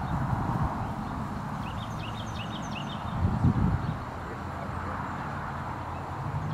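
A bird singing a quick series of short rising chirps about two seconds in, over a steady low outdoor rumble that briefly swells about three and a half seconds in.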